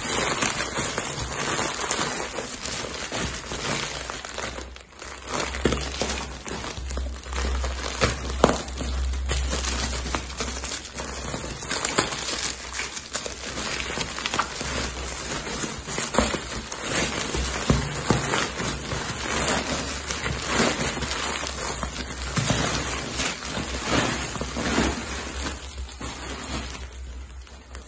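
Plastic packaging crinkling and rustling under the hands: a thin black plastic shipping bag and the clear vacuum-sealed wrap of a pillow, with a dense run of sharp crackles.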